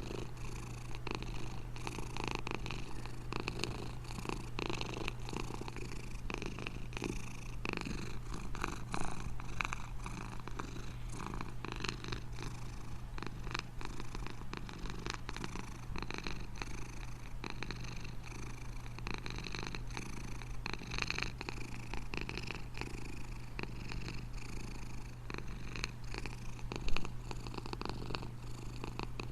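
Domestic cat purring steadily and continuously, with one brief loud knock near the end.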